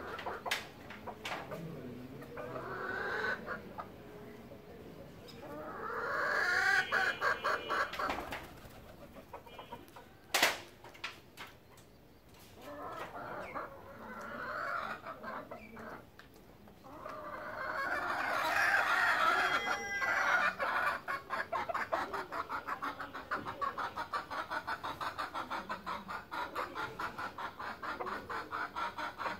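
Animal calls in bouts of quick chattering pulses: loudest about a fifth of the way in and again past halfway, then a long even run of rapid pulses to the end. A single sharp click comes about a third of the way in.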